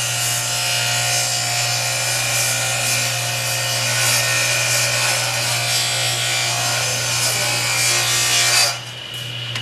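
Power saw cutting through panelling, running steadily with a continuous motor whine, then stopping shortly before the end.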